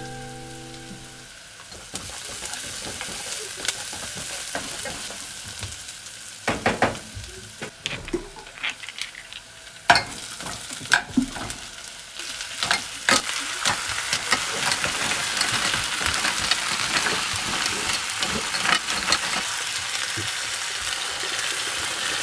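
Onion and green pepper sizzling in a pot while being stirred, with a run of sharp clicks and clatters as clams in their shells go into the pot; the sizzle grows louder in the second half.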